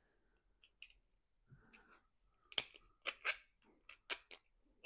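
Faint, short clicks and scrapes of 3D-printed plastic parts being handled and fitted together, a string of light taps that comes mostly in the second half.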